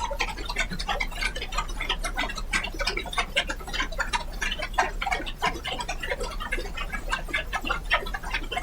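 Applause in the chamber: many hands clapping in a dense, irregular patter that keeps an even level throughout.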